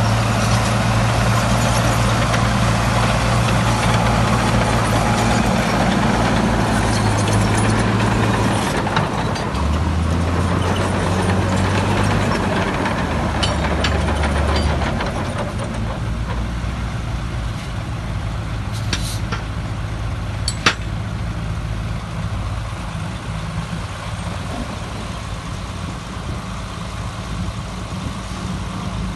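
Heavy diesel engine of earthmoving machinery running under load. Its low note shifts lower about a third of the way in, then the engine settles quieter about halfway through; a single sharp click about two-thirds of the way in.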